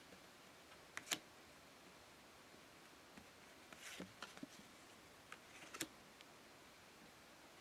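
Pokémon trading cards being handled in near silence: a sharp tap about a second in, then short clusters of light clicks and taps around four and six seconds in.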